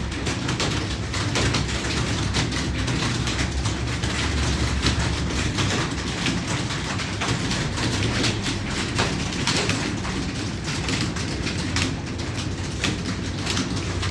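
Keyboard typing: rapid, irregular key clicks over a low steady hum.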